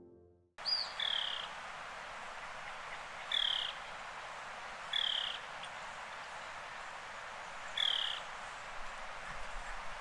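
Elegant trogon giving single hoarse, croaking calls that fall in pitch, four times at intervals of two to three seconds, over a steady background hiss.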